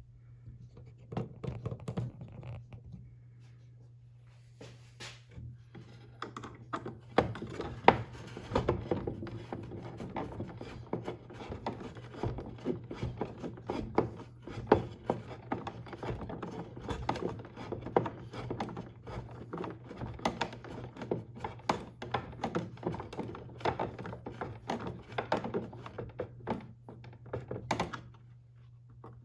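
Screwdriver driving screws through small mounting brackets into a wooden clock case: a busy run of clicks, scrapes and knocks, sparse at first and dense from about six seconds in. A steady low hum runs underneath.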